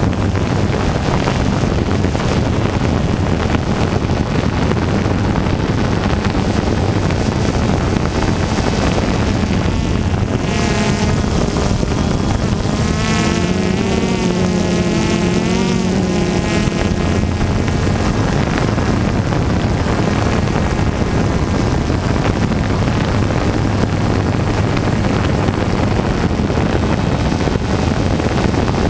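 Small quadcopter drone's motors and propellers buzzing steadily, heard through its own onboard camera with wind rush on the microphone. About halfway through, the pitch wavers up and down for a few seconds as the throttle changes.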